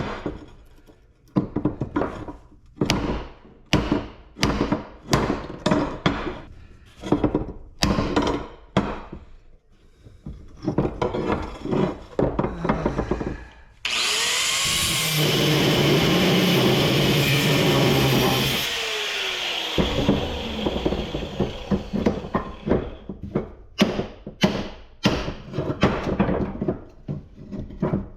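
Sharp hammer strikes on metal parts, coming about once a second, then a power tool runs steadily for about six seconds from about halfway through, before more strikes follow.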